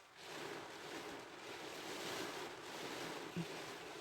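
Steady hiss of rain and wind beating on a car, heard from inside the cabin, with one soft knock about three and a half seconds in.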